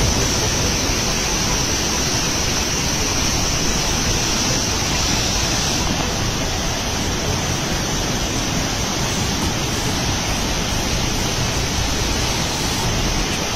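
Fast-flowing river water rushing steadily at the foot of a concrete spillway, churning white water.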